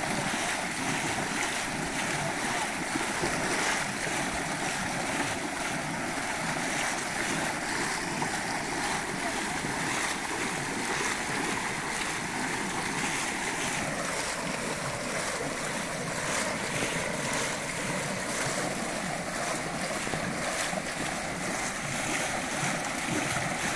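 Steady rush of water with a fine, continuous patter, as of rain and flowing floodwater.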